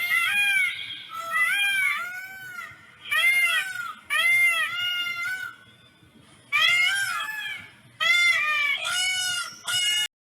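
Peacock calling: loud, arching wails repeated in several bursts of two or three notes, with short pauses between the bursts, cut off suddenly near the end.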